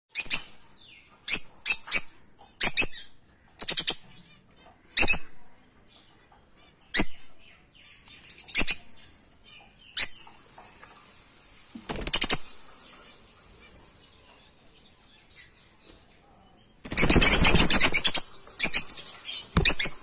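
Rosy-faced (peach-faced) lovebirds calling: short, sharp, high-pitched chirps about once a second, then a dense burst of rapid chattering about three-quarters of the way through, followed by a few more chirps.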